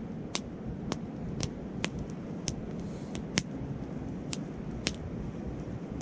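Campfire of gathered wood crackling, with a string of sharp, irregular pops over a steady low rumble of wind and flowing stream.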